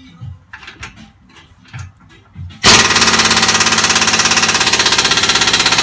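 Impact wrench hammering rapidly for about four seconds, starting loudly a little under three seconds in, on an exhaust fastener that is still not turning. A few light tool clinks come before it.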